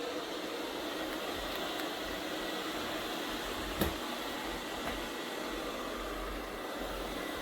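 Robot vacuum cleaner running with a steady whir, with a single click about four seconds in.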